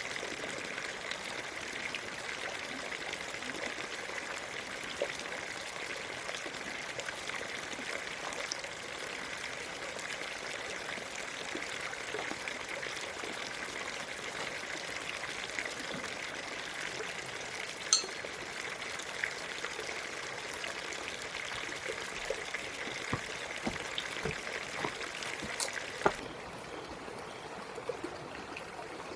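Water running and trickling steadily, with scattered clicks and knocks. There is a sharp click a little past the middle and a cluster of knocks near the end, after which the sound gets somewhat quieter.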